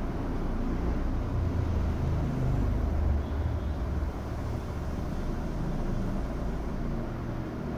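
A steady low rumble of background noise, with no distinct clicks or knocks standing out above it.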